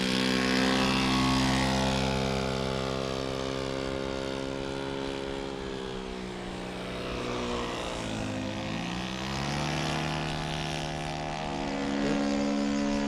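Saito FG-21 single-cylinder four-stroke gas engine of a Hangar 9 Carbon Cub RC plane running at high throttle with its propeller on takeoff and climb-out. Its steady note sags in pitch about halfway through and rises again near the end.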